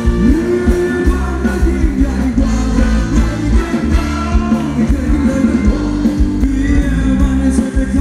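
Live Thai ramwong dance band playing upbeat music with a singer over a heavy, steady beat.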